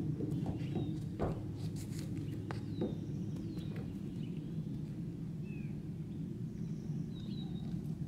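A horse's hooves knock a few times on the trailer floor and edge as it backs out of a stock trailer, early on, then go quiet on the grass. Small birds give short falling chirps several times over a steady low outdoor rumble.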